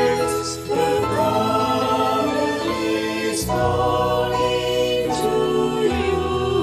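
Music: a choir singing slow sustained chords that change every one to two seconds.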